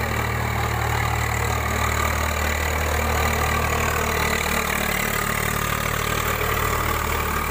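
Tractor's diesel engine running steadily as it ploughs a flooded paddy field on cage wheels.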